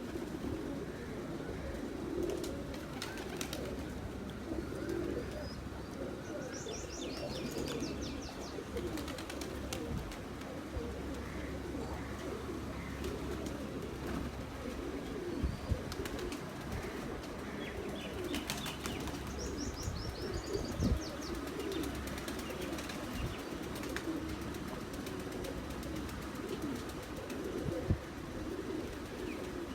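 High-flyer pigeons cooing continuously in a low, overlapping warble. Twice a small bird gives a short, rapid, high chirping trill over it.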